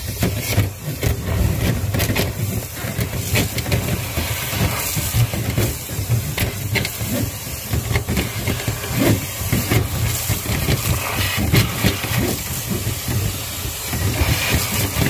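Dryer vent cleaning hose working inside a clogged dryer vent duct: a steady rushing hiss and hum of air, with constant rattling and clicking as lint and debris are knocked loose and pulled through.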